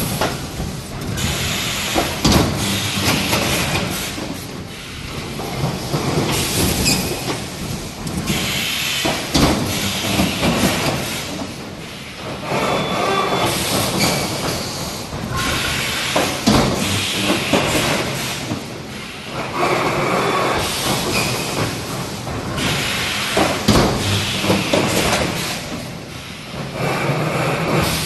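EPS 3D panel machine's pneumatic cylinders cycling: bursts of compressed-air hiss every few seconds, with metal clanks and knocks of the mechanism between them.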